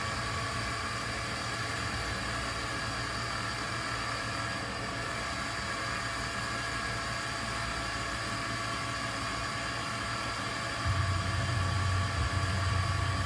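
EcoThermics 40 hp transcritical CO2 (R744) axial piston compressor running steadily, a hum with several constant whining tones above it. About eleven seconds in the low hum grows louder.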